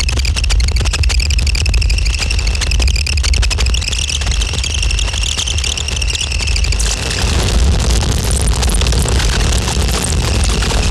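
Harsh noise music from a Eurorack modular synthesizer: a heavy low drone under dense crackling noise, with a steady high-pitched squeal on top. About seven seconds in the squeal drops out, leaving a broader hiss over the drone.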